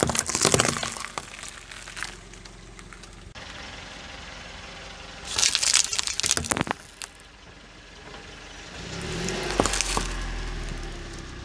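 A car tyre rolling over and crushing cucumbers, with crunching and cracking, then, about five seconds in, crushing a plastic packet of small colourful items in a dense burst of crackling and crinkling. Near the end the car's low rumble rises, with one sharp crack.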